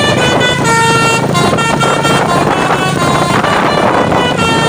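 Truck's telolet basuri musical air horn playing a quick tune of short, changing notes, over a steady low rumble.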